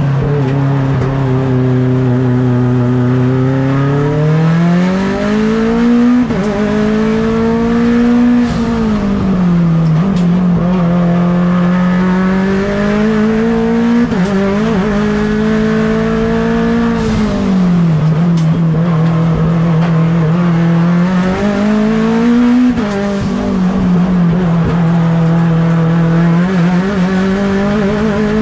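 Turbocharged 4B11 four-cylinder engine of a Mitsubishi Lancer Evolution X hill-climb race car, driven hard. The engine note climbs and falls again and again, with sharp breaks at gear changes and lift-offs several times.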